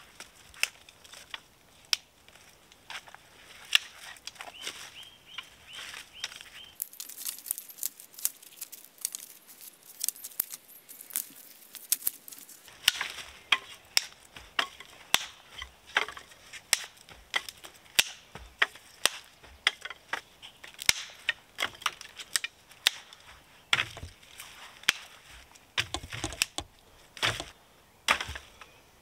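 Dry dead branches and twigs being snapped by hand for firewood: a rapid, uneven run of sharp cracks with twigs rustling, a stretch of fine crackling partway through, and a few heavier thuds near the end.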